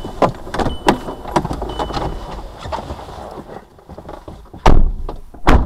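Car cabin noise as the car slows to a halt, with a low rumble, scattered sharp clicks and a short high beep repeating about once a second. Two loud knocks come near the end.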